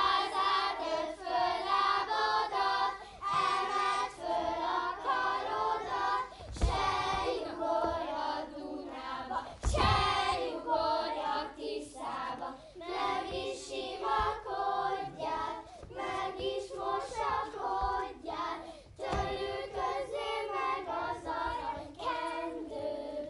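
A group of children singing a song together while they dance, with a few thuds of feet on the stage floor.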